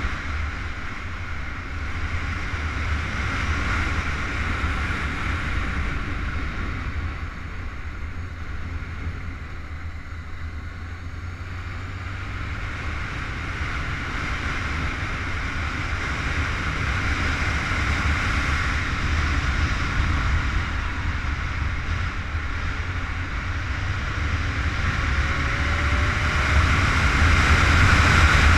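Honda CBR919RR sport bike at speed, heard from onboard as heavy wind rush on the microphone over the inline-four engine running underneath. The noise eases off partway through, then builds back up and is loudest near the end.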